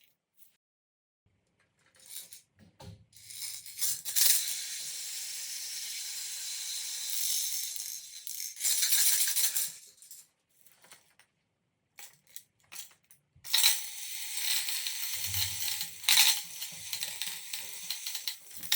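Sensory rain tubes being tipped, beads trickling through them in a rain-like patter: two long pours, about four seconds in and again near the end, with short rattles and silent pauses between.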